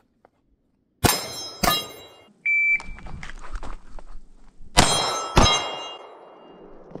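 Two pistol shots about half a second apart, then a shot timer's single high beep, then two more pistol shots about half a second apart, near the end. Each pair is followed by ringing, as of bullets striking steel target plates.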